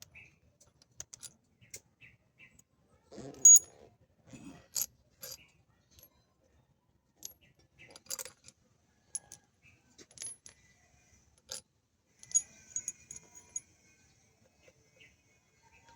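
Scattered metallic clinks and taps at irregular intervals, like tools or small metal parts being handled, with the loudest clink about three and a half seconds in and a quick run of small ticks near the end.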